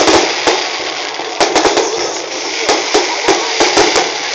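Aerial fireworks bursting: a loud bang right at the start, then a dozen or so sharp bangs and cracks at irregular intervals, over a continuous crackling hiss.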